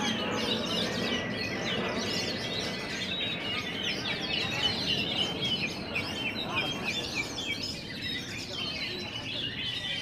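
Many caged oriental magpie-robins (kacer) singing and chirping at once in dense, overlapping song, over a murmur of crowd voices.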